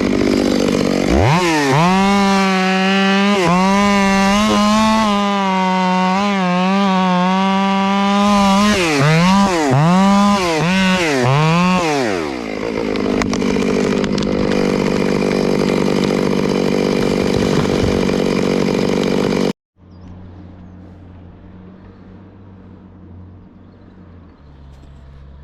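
Chainsaw revved up to full throttle and held at high revs, with the pitch wavering. Near the middle it is blipped up and down several times, then it settles to idle. The sound cuts off abruptly, leaving only a faint low hum.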